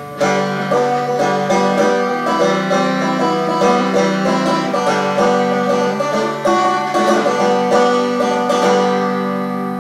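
Open-back five-string banjo picked in a quick run of plucked notes, the last notes ringing out and fading near the end.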